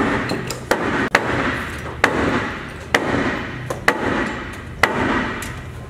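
Hammer blows, about one a second, each with a short ringing tail, as a wooden hull plank is driven and clamped into place during planking.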